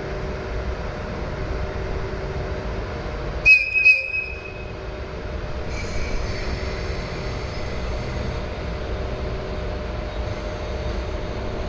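Train of E531 series cars hauled by an EF81 electric locomotive running past with a steady rumble of wheels on rail. About three and a half seconds in come a couple of sharp knocks and a brief high-pitched wheel squeal.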